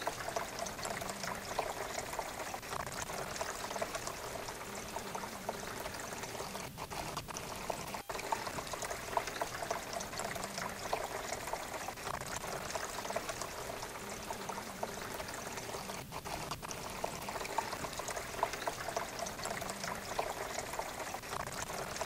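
Water from a pump-fed homemade waterfall fountain splashing and trickling steadily down its cement-coated styrofoam tiers into the pond below.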